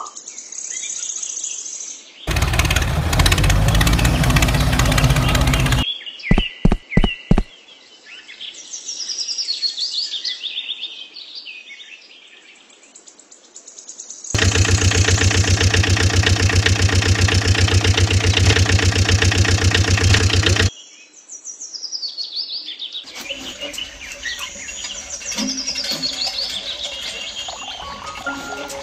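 Birds chirping, interrupted twice by a loud, steady engine-like running sound: once for about three and a half seconds early on, and again for about six seconds in the middle. A quick run of five sharp clicks comes about six seconds in.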